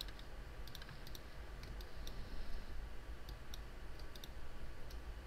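Scattered clicks of a computer mouse, some in quick pairs, over a faint steady low hum.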